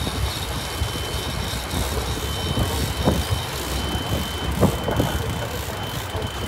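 Sport-fishing boat's engines running steadily under way, with wind and rushing water over the drone and a few dull thumps about three and four and a half seconds in.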